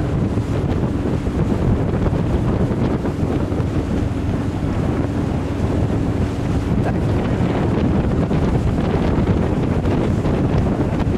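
Wind buffeting the microphone on a small boat under way, over the boat's running and the rush of choppy water, a steady, unbroken rumble.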